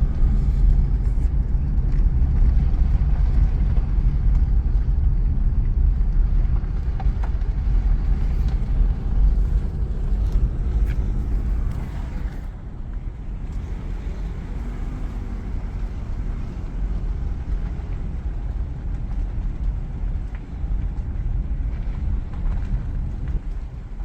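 Steady low rumble of a car driving: road and engine noise, easing a little about halfway through.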